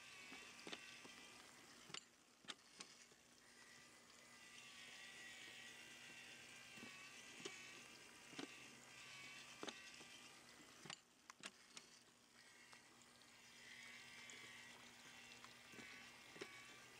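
Near silence: faint steady hiss with a low hum and a few scattered small clicks.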